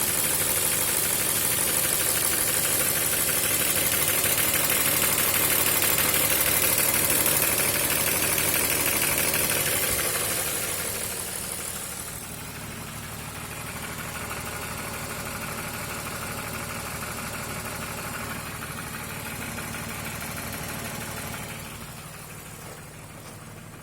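BMW M52TU straight-six engine idling with a knocking noise whose cause the owner does not know. It is loud for about the first ten seconds, then drops to a quieter level, and falls again near the end.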